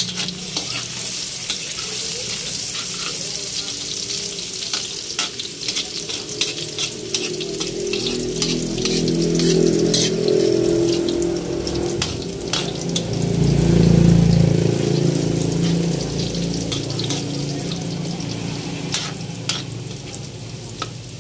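Minced garlic sizzling in hot oil in a wok, stirred with a metal spatula that scrapes and clicks against the pan. A low rumble swells and fades in the middle.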